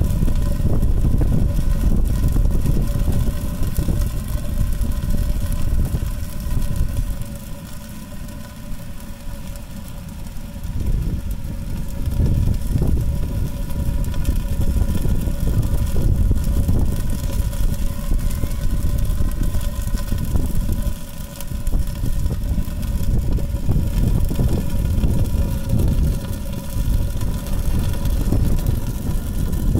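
Fire whirl burning in a metal drum TLUD stove: a steady low roaring rumble with a faint constant hum through it, easing off for a few seconds about a quarter of the way in and again briefly past two-thirds of the way.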